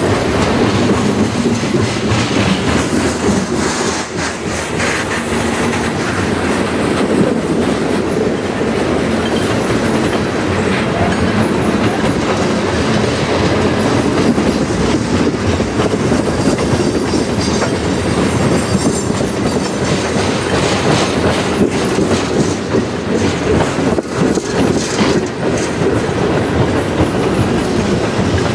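Freight cars of a passing CN manifest train rolling by close at hand, a steady rumble with wheels clacking over rail joints.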